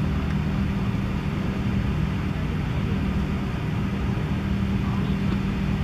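A steady, unbroken low mechanical drone with a constant hum, like a running engine.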